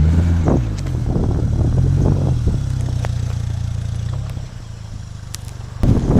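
An off-road 4x4's engine revving under load, its pitch dropping and then climbing again before it eases off about four and a half seconds in. Near the end it comes back louder, with clattering knocks.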